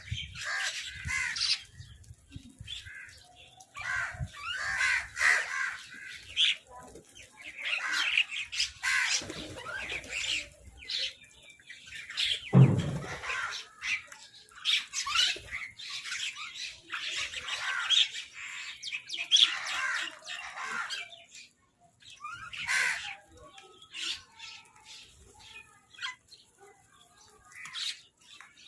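Several crows cawing and squawking harshly in repeated bursts, the noise of crows squabbling over food. A single loud thump about halfway through.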